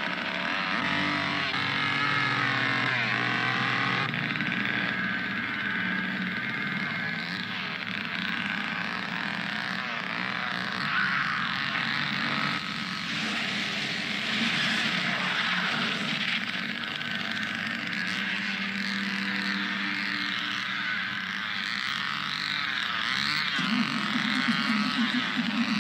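Two-stroke chainsaw running and revving up and down, with a woman screaming over it. Near the end a louder, lower engine sound comes in as the pickup truck pulls away.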